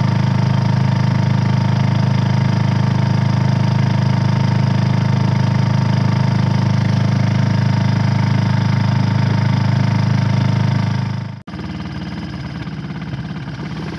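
A boat's engine running with a steady low hum. About eleven seconds in it cuts off suddenly, and a quieter engine idles, warming up.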